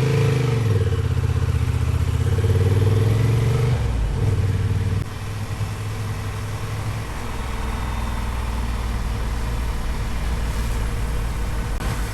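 Honda XL750 Transalp's parallel-twin engine pulling away, its pitch rising and falling through the first four seconds, then dropping to a quieter, steady run.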